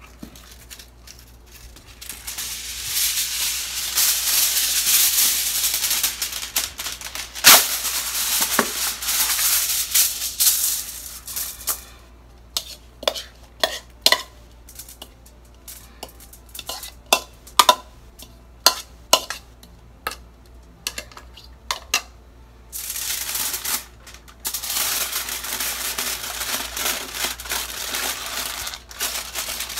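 Aluminium foil crinkling as a sheet is handled, then a run of sharp clicks and scrapes of a metal spoon against a plastic bowl as a fish curry mixture is spooned out, then foil crinkling again as it is folded into a packet.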